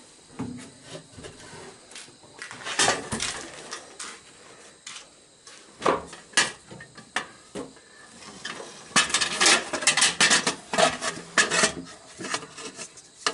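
Metal hand tools clinking and clanking against metal parts, in scattered knocks at first, then a quick run of clinks and rattles about nine seconds in.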